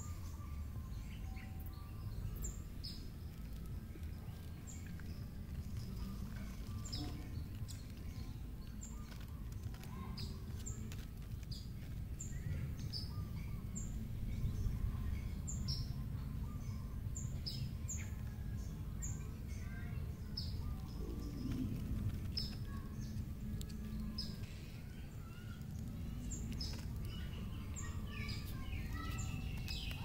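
A bird calling over and over: short, high notes that each drop in pitch, about one a second, over a steady low rumble.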